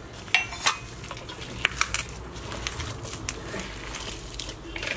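Hands squeezing and mixing a thick rice-and-onion pakoda dough in a stainless steel bowl: a soft rustling squish with a handful of light ticks against the steel.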